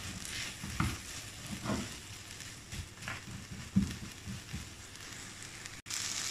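Shredded cabbage and bell peppers sizzling in a nonstick frying pan on high flame, stirred and tossed with a spatula that scrapes the pan about once a second. This is the spring roll filling being cooked until the vegetables' water dries off. The sound cuts out briefly near the end.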